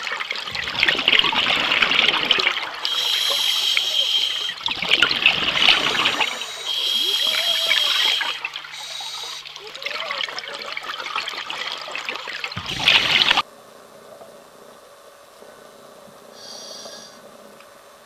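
Scuba diver's regulator breathing underwater: hissing inhalations with a thin whistle alternate with bubbling rushes of exhaled air, several breaths in a row. About three-quarters of the way through it cuts off suddenly, leaving only a faint hiss.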